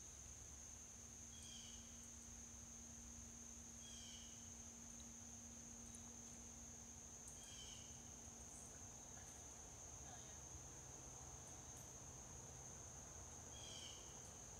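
Faint forest ambience: a steady high-pitched insect drone, with a short bird call repeating every few seconds.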